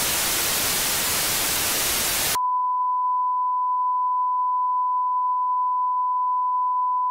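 Loud television static hiss, then about two and a half seconds in it switches abruptly to a single steady test-card beep tone that goes with colour bars, which cuts off suddenly at the end.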